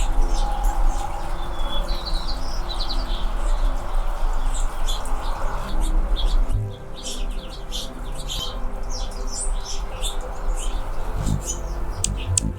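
Anna's hummingbirds calling, a steady scatter of short, high chips and chirps, several birds overlapping at times.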